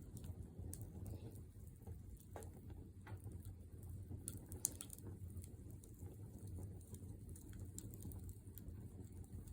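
Wood fire burning in a fire pit stand: a faint low rush of flame with scattered small crackles and a sharper pop about halfway through.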